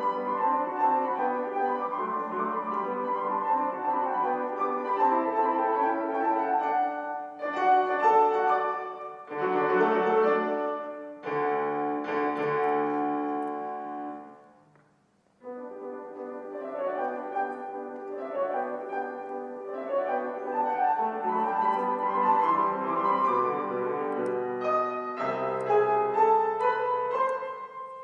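Background piano music. It fades almost to silence about halfway through, then starts up again.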